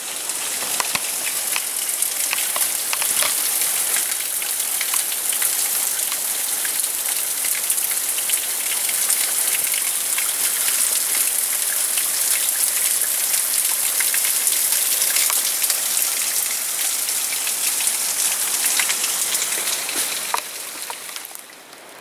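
Water raining down in many thin streams and drips from a rock overhang, splashing onto the stones below as a steady, rain-like pattering. It drops away near the end.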